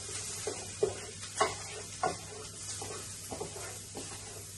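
Wooden spoon stirring onions, mushrooms and peppers frying in an electric frying pan: a steady sizzle with repeated scrapes and knocks of the spoon against the pan, the sharpest about one, one and a half and two seconds in.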